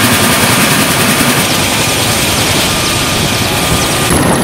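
Mil Mi-17 helicopter running on the ground, its twin turboshaft engines and main rotor making a loud, steady noise.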